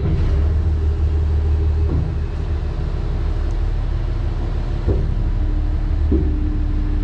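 Engine of a Hough Pay Loader wheel loader running steadily, with its pitch stepping a few times, as the bucket is raised off its cribbing block.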